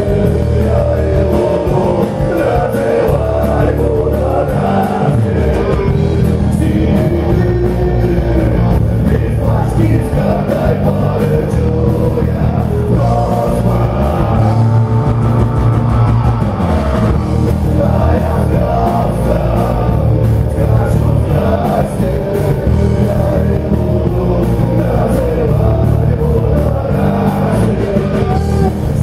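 Rock music: a band playing steadily with a singer's voice over it.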